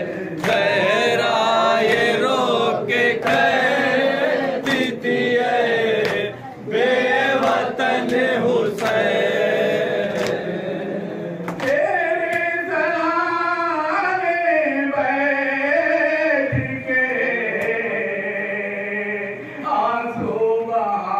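A group of men and boys chanting a Shia Muharram nauha (lament) in unison into a microphone, the melody rising and falling. Scattered sharp slaps, hands beating on chests in matam, cut through the chant, mostly in the first half.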